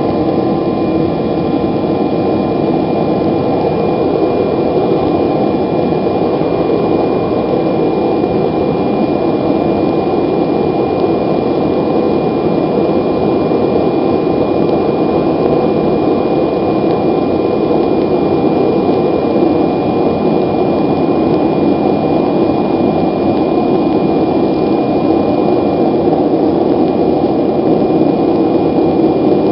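Propane gas forge burner running steadily: a loud, even rush of burning gas, with a thin high whistle held throughout.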